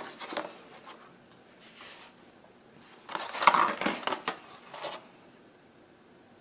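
Clear plastic blister packaging crinkling and rubbing in the hands as it is picked up and turned over, in irregular bursts, loudest between about three and five seconds in.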